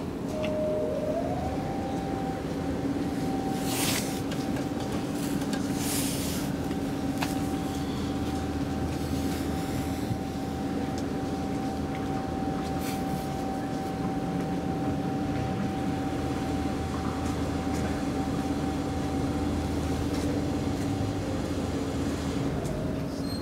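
Traction elevator car travelling in its shaft: the drive's whine rises in pitch as the car starts off, holds one steady tone through the run, and falls away as the car slows near the end, over a steady low hum, with a couple of brief rattles a few seconds in.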